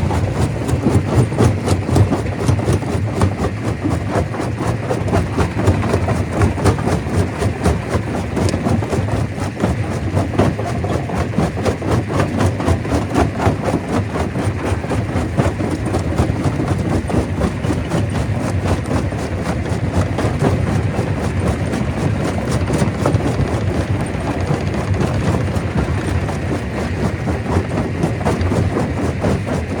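Stone crusher running: a steady, loud, heavy mechanical rumble with a dense, fast clatter of rock being broken.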